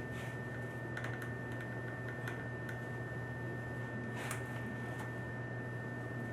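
A few light, scattered clicks and taps as a copper pipe hook is handled and set against the pipe, over a steady low hum and a thin high-pitched whine.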